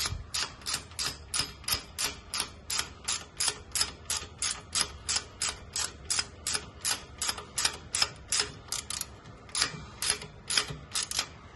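Hand socket ratchet clicking steadily, about three clicks a second, as a frame bolt is run down snug, with a brief pause near the end.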